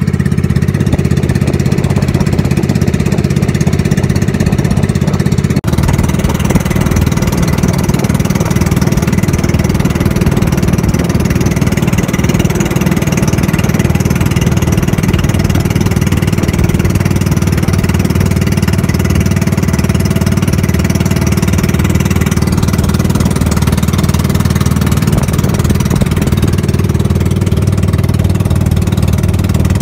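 Small fishing boat's engine running steadily while the boat is underway, with a brief break about six seconds in.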